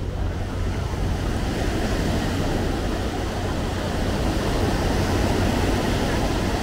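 Ocean surf washing on the beach: a steady rush that swells a little about five seconds in.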